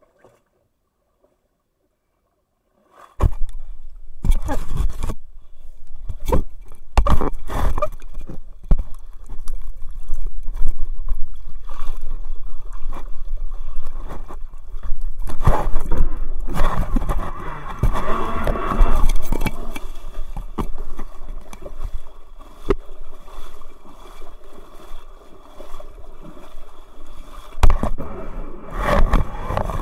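After about three seconds of silence, loud water sloshing and a low rumble with many sharp knocks and bumps, picked up by a dashcam mounted on the deck of a homemade jet surfboard on the water.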